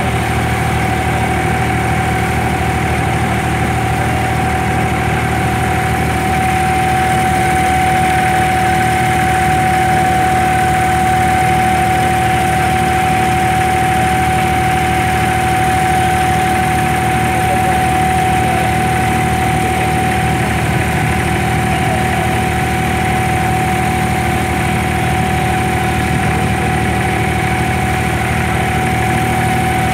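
Boat's engine running steadily underway, a constant low hum with a steady whine above it.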